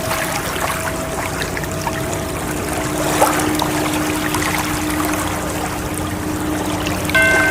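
Ocean waves washing in a steady rush of water, with faint sustained tones underneath. A clear ringing tone, like a chime, starts just before the end.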